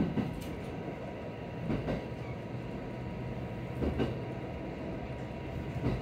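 Diesel railcar running on the line, heard from inside the car: a steady rumble with a faint steady whine, and soft clacks from the wheels over rail joints about every two seconds.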